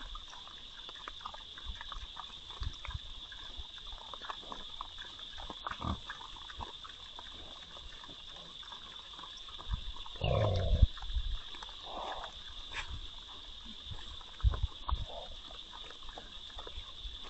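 A group of hogs rooting and feeding in hay, with steady rustling and soft grunts and one louder grunt about ten seconds in. A steady high-pitched whine runs underneath.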